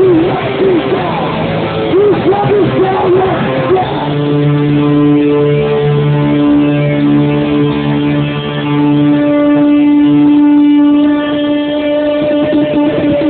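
Loud live hardcore band playing, led by distorted electric guitar: wavering, bent notes for about four seconds, then a chord held and ringing out steadily, with a higher tone joining it later.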